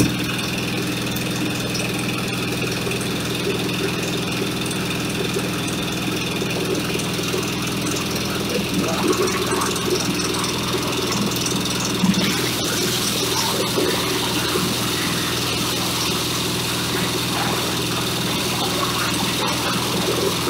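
Corn husker-sheller running under load, driven by a single-cylinder diesel engine at a steady speed. Irregular rattles come through over the second half as husked corn ears pass through the threshing drum.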